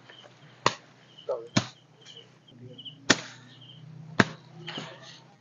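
Sharp clicks and knocks, four of them about a second apart, as a pop-up dome tent is unfolded and its springy frame handled. Faint short high chirps come in between.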